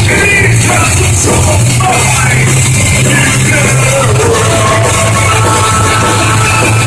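A live rock band playing loudly, with a heavy, steady bass low end, captured on a phone microphone.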